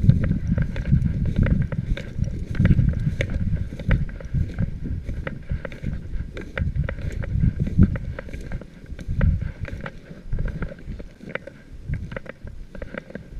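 Wind rumbling on the microphone, with the brushing and crunching of footsteps through dry grass and patchy snow; the rumble eases in the last few seconds.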